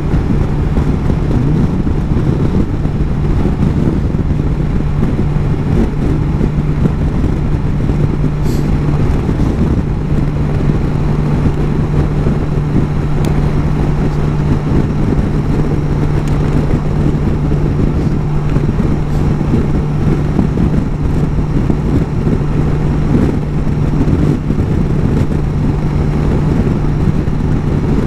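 BMW S1000 XR's inline-four engine running at a steady cruising speed, holding one even note, under wind and road noise.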